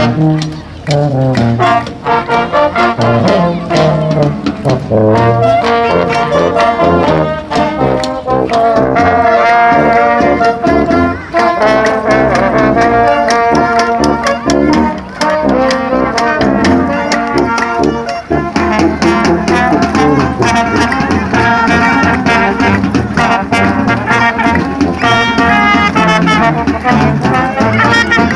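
A brass-and-percussion street band playing a tune together: trumpets, saxophone and other brass over a steady drumbeat.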